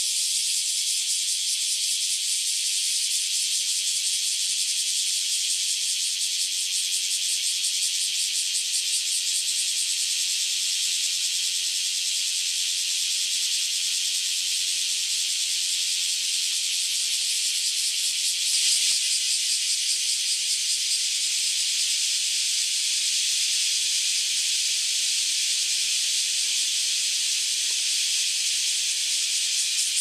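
Chorus of cicadas: a loud, continuous, high buzzing hiss that swells briefly a little past halfway.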